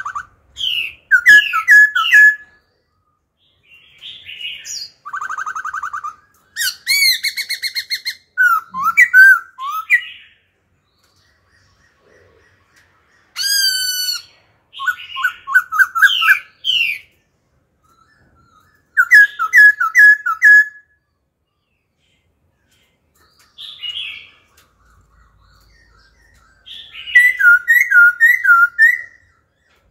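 Black-throated laughingthrush singing loudly in a string of varied phrases of whistles, chirps and quick repeated notes, each burst lasting a second or two with short pauses between. It switches from one phrase type to another throughout.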